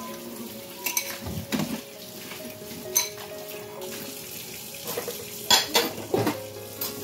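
Kitchen tap running while plates are rinsed and clink against each other and the wire dish rack. There are several sharp clinks, the loudest about five and a half seconds in.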